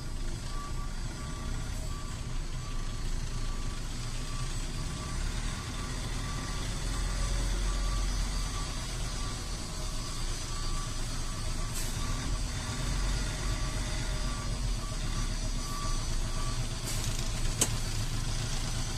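Heavy vehicle engine running with a steady low rumble, while a reversing alarm beeps repeatedly at one pitch, stopping about sixteen seconds in.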